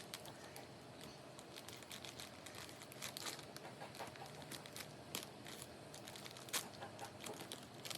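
Faint crinkling and crackling of a plastic bag of frozen fruit being handled and pulled open.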